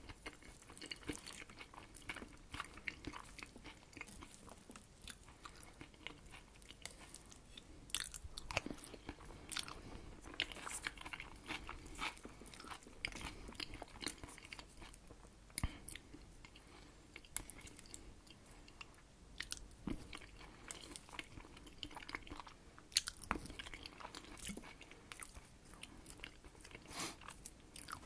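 Close-miked chewing and biting of Herring under a Fur Coat salad, with irregular crunches and mouth clicks throughout.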